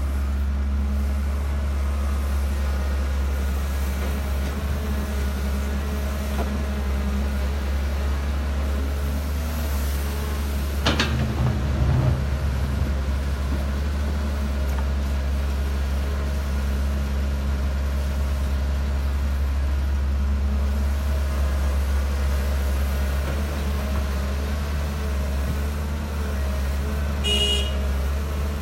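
Dump truck engine running steadily as the truck drives, a constant low drone. There is a sharp knock-like sound about 11 seconds in and a short high-pitched beep near the end.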